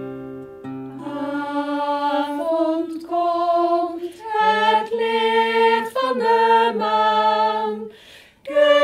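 A strummed acoustic guitar chord dies away in the first second and a half, then a voice sings a slow, unaccompanied lullaby melody in long held notes, pausing briefly near the end.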